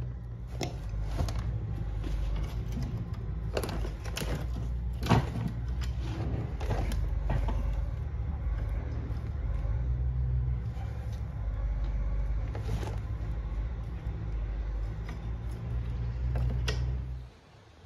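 Metal clinks and knocks of a manure spreader's webbing chain links being handled and hooked together by hand, scattered and irregular over a steady low hum. Everything cuts off suddenly near the end.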